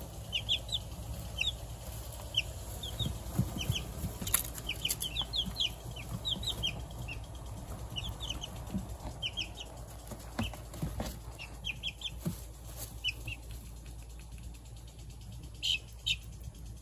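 Young chicks and ducklings peeping: short, high cheeps in quick little runs, busy at first and thinning out in the second half. A few sharp clicks sound among them, the loudest about four seconds in.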